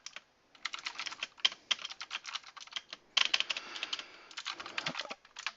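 Redragon K551 mechanical keyboard with clicky blue switches being typed on rapidly: a dense run of sharp key clicks, with a short pause just after the start and a faster flurry about three seconds in.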